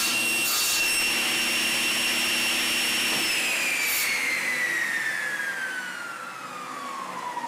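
Table saw running at speed with no load, then switched off about three seconds in, its whine falling steadily in pitch as the blade spins down. A couple of brief rustling sounds come near the start and about four seconds in.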